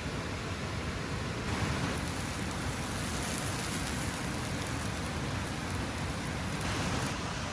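Steady rainfall as an even hiss, growing louder and brighter from about a second and a half in until near the end.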